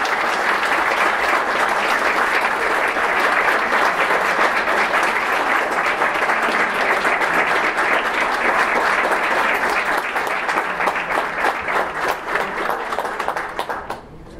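Audience applauding, a dense wash of clapping that thins into scattered separate claps over the last few seconds and stops just before the end.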